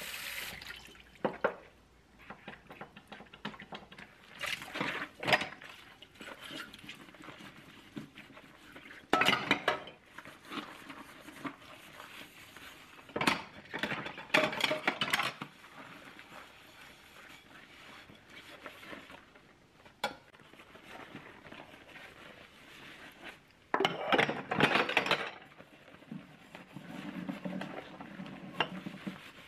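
Ceramic dishes being washed by hand in a stainless steel sink: bowls and plates clink and knock against each other in a handful of bursts, with softer handling sounds between.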